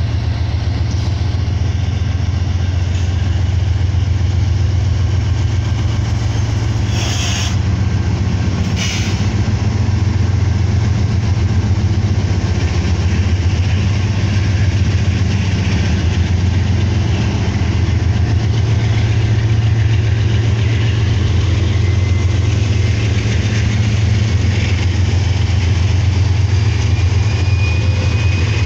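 Lead Norfolk Southern GE diesel locomotives, a rebuilt AC44C6M followed by a Dash 9, pass close by with their engines running in a loud, steady, deep drone. Two short hisses come about seven and nine seconds in. The first hopper cars' wheels roll by near the end.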